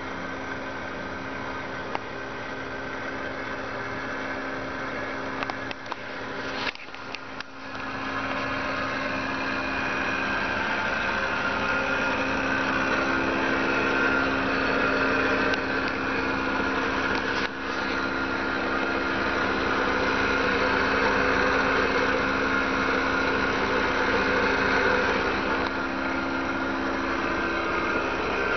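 Subaru Sambar van's 660 cc four-cylinder engine idling steadily, with a brief dip and crackle about a quarter of the way in, then louder for the rest.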